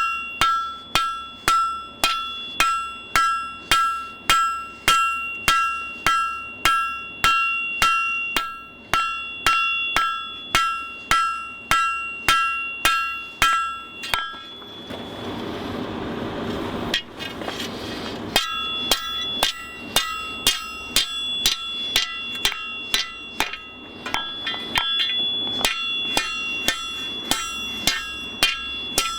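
Blacksmith's hand hammer striking steel bar on an anvil at a steady pace of about two blows a second, each blow ringing. About halfway through the hammering stops for some four seconds and a steady rushing noise takes its place, then lighter blows resume.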